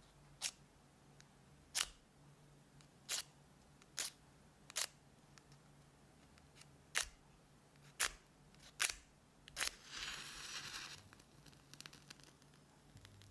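Nine sharp, separate clicks at uneven intervals, then about a second of crackling hiss around ten seconds in.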